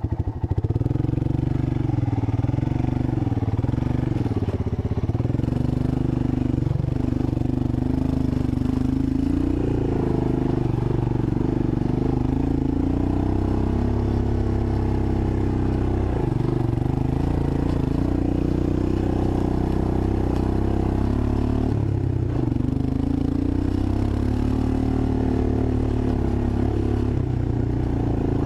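1985 Honda ATC 250SX three-wheeler engine running under way, its pitch rising and falling repeatedly as the throttle is opened and eased off.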